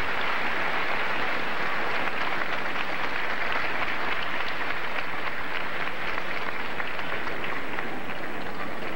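Large arena crowd applauding steadily, a dense patter of many hands clapping.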